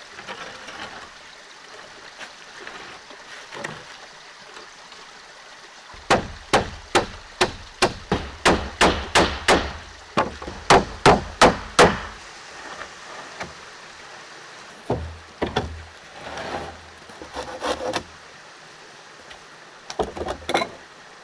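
Claw hammer driving a nail into a wooden board: a run of about fifteen sharp strikes, two or three a second, starting about six seconds in and stopping about halfway through. A few scattered wooden knocks follow near the end.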